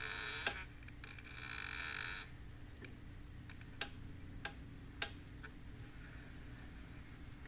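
Buell XB9R's drive belt and pulley groaning in two short raspy bouts near the start, an intermittent groan whose cause is still undiagnosed. About five sharp, separate clicks follow over the next few seconds.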